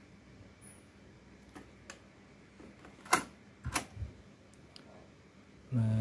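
Mechanical clicks and clacks from a Sony TC-K77R cassette deck being handled, as the cassette door is closed on a tape and the transport buttons are pressed; the two sharpest clicks come about three and three and a half seconds in. A low steady hum starts near the end.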